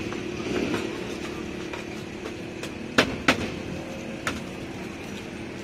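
Steel cleaver knocking sharply against a metal griddle pan twice, about three seconds in, with a fainter tap a second later, while a large flatbread is cut into pieces; a steady low hum runs underneath.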